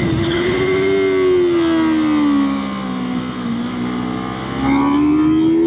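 Sport motorcycle engine under way. Its note eases down for about two seconds as the throttle comes off, then climbs again as it accelerates, over wind and road noise.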